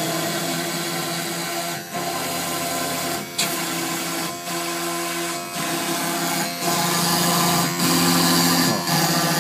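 CNC machine cutting: its stepper motors whine in steady tones that change pitch every second or so as the axes move from path to path, with short pauses between moves and a constant high hiss over them. A single sharp click comes about three and a half seconds in.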